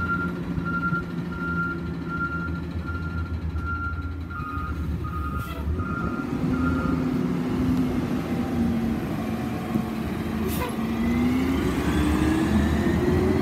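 Peterbilt garbage truck with an Amrep side loader, running on natural gas: its backup alarm sounds a run of steady beeps over the engine idle and stops about seven seconds in. The engine then revs up, rising in pitch as the truck pulls away, with a brief sharp snap partway through.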